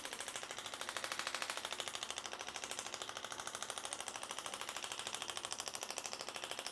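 Handheld electric percussion device rapidly tapping, about a dozen even taps a second, running steadily.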